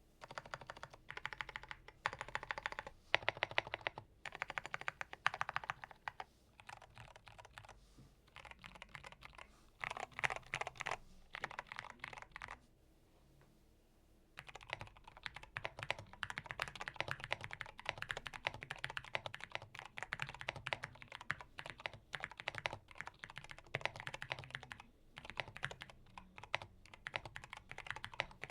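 Typing on a GMK67 mechanical keyboard with stock Cherry MX Purple switches: rapid runs of key clicks and clacks in bursts, a short pause a little before halfway, then fast continuous typing.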